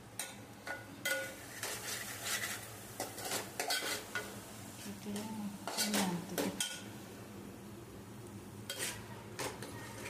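Steel spoon scraping and clinking against a stainless steel pot while a thick ground masala paste with chilli powder, turmeric and salt is stirred and sautéed. The strokes are irregular, with a short pause about two-thirds of the way through.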